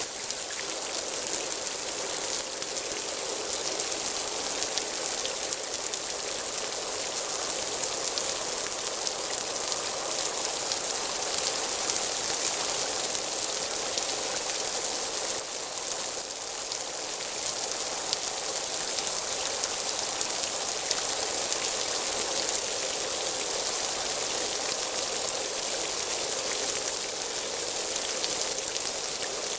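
Steady light rain: a drizzle of fine raindrops pattering on surfaces, a continuous hiss flecked with many small drop ticks.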